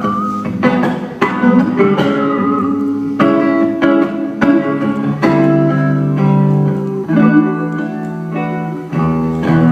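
Instrumental interlude of a live song: guitar playing plucked notes and sustained chords, with no singing.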